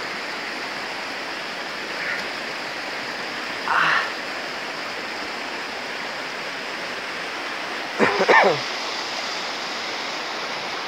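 Shallow creek water running steadily over rocks and logs. A brief sound near four seconds in, and a short voice sound falling in pitch about eight seconds in, the loudest moment.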